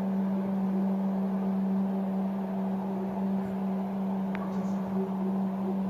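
Steady low-pitched hum holding one pitch without a break, with a fainter overtone above it over a background hiss. It is a night recording of the unexplained sky hum known as 'The Hum'. A short thin high chirp sounds about four seconds in.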